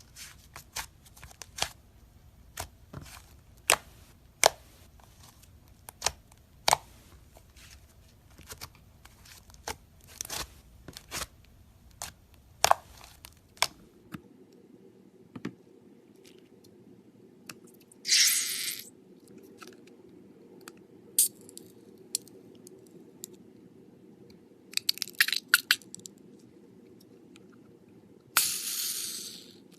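Slime and stress balls being cut and squeezed by hand. The first half is a quick run of sharp crackling clicks. After a change in background about halfway through come three short hissing squishes.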